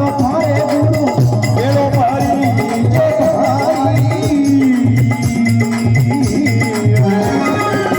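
Instrumental interlude of a devotional folk song: a gliding melody line over a steady, evenly repeating drum beat.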